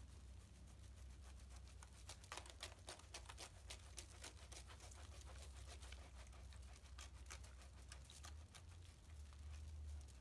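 Faint crackle of fizzing foam and bubbles popping on bath water around a dissolving bath bomb, a scatter of tiny clicks that thickens a couple of seconds in and thins out near the end, over a low hum.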